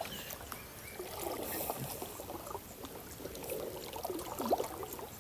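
Water trickling and sloshing in and around a small boat, with a few light knocks.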